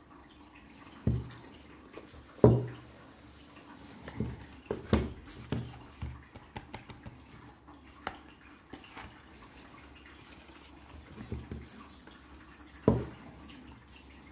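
Cardboard slipbox and plastic Blu-ray case being handled on a table: a scatter of light taps, scrapes and knocks. Among them are a few louder thumps, the loudest about two and a half seconds in and another near the end, as a box or case is set down on the table.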